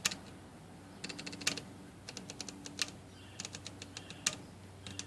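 IBM Selectric III typewriter indexing the platen over and over: groups of quick ratchet clicks, each ending in a louder click, about every second and a half, over the steady hum of the running motor. Its detent roller is worn with grooves, which causes an occasional indexing misfeed heard as a little extra click.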